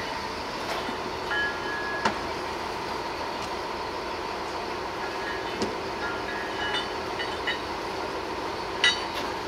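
Steady hum of heavy rescue machinery with a faint held tone, broken by a few sharp metallic clanks and brief high squeaks as crane cables work on a wrecked railcar.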